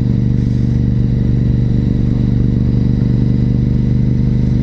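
2004 Honda RC51 SP2's 1000cc V-twin engine running at a steady cruise, its pitch holding even.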